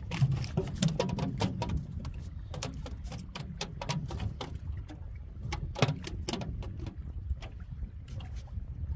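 Strong wind buffeting the microphone in a steady low rumble, with scattered light clicks and knocks throughout.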